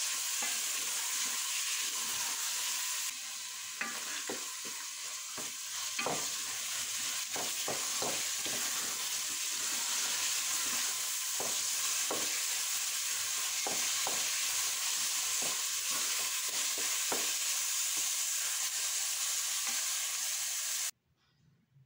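Turnip sabzi sizzling in a metal pot while a wooden spatula stirs and scrapes through it, with repeated short knocks of the spatula against the pot. The sound stops abruptly near the end.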